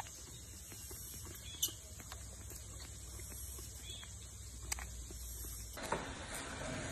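Macaque eating a banana: soft, scattered mouth clicks and smacks over a steady hiss, with one sharper click about a second and a half in. Near the end the background turns to a louder, fuller noise.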